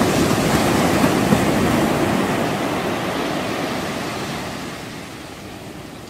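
Wind and sea water rushing past a moving tour boat, a steady rushing noise that gradually gets quieter over the last few seconds.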